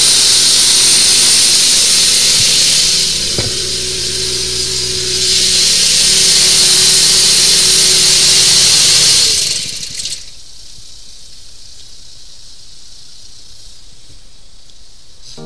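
High-pressure sewer jetter running, its engine-driven pump and water jet making a loud steady hiss. The hiss eases for a couple of seconds about three seconds in, then cuts off sharply about ten seconds in, leaving a much quieter steady hum.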